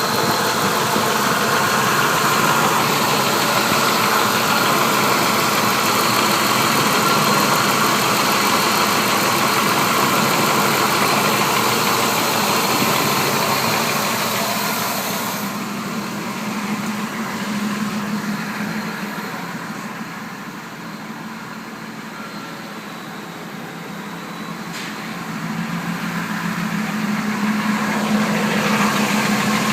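Engine idling with a ticking from the bottom of the engine, which the owner takes for a possibly broken lifter. The sound grows quieter and duller for a few seconds past the middle, then comes back up.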